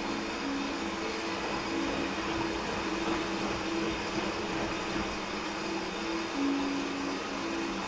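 Washing machine running, a steady mechanical whir with a hum that wavers between two close pitches.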